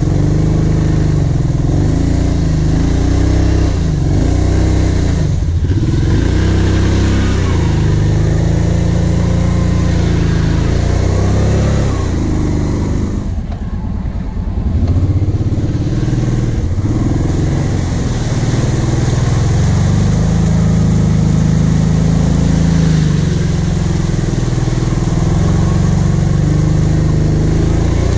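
Quad (ATV) engine under the rider, revving up and down as the quad crawls and climbs through deep ruts and mud. It eases off to a lower, quieter run about halfway through, then pulls steadily again.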